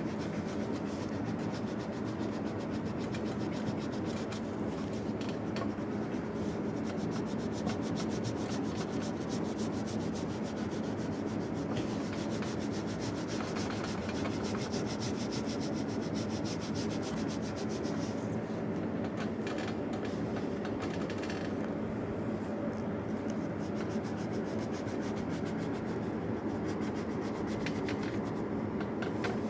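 A crayon rubbing on paper in rapid back-and-forth strokes as an area is coloured in, a steady dry scratching with no break.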